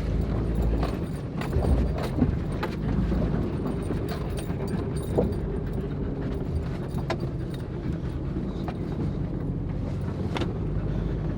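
A Jeep's engine running at low speed as it crawls over rocks, heard from inside the cabin. Frequent clicks, knocks and rattles come from the body and loose things inside as it bumps along, with a thump right at the start.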